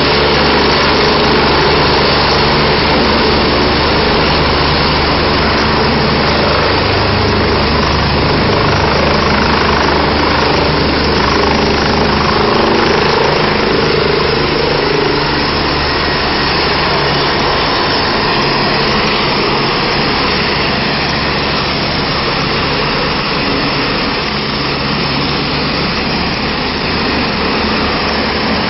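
Helicopter turbine engine and main rotor running close by, loud and steady. It eases off slightly about halfway through.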